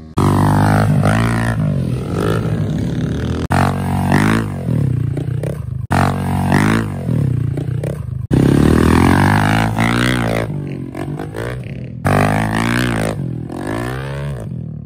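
Honda CRF110 pit bike's small single-cylinder four-stroke engine revving up and down, its pitch rising and falling again and again. The sound breaks off abruptly every few seconds as one short clip gives way to the next.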